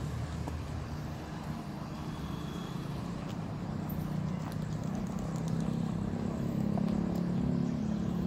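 Children's electric ride-on buggy driving on rough asphalt: a steady motor drone with wheel rumble, growing louder as it comes closer.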